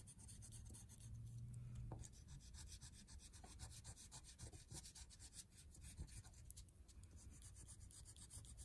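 Faint scratchy rubbing of a yellow oil pastel stroked back and forth across drawing paper as it colours in.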